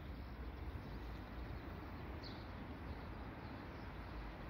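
Steady low outdoor rumble, with a short, high bird chirp about two seconds in.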